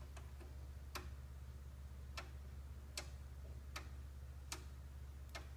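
A series of sharp clicks, roughly one a second but not perfectly even, over a steady low hum.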